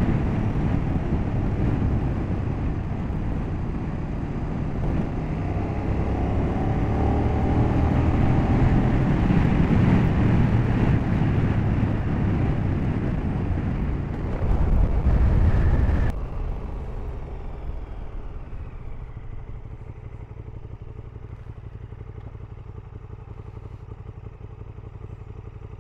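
KTM 1290 Super Duke GT's V-twin engine running under way with wind rush, its note rising and falling. About sixteen seconds in it cuts suddenly to the bike standing still, the engine idling steadily and much quieter.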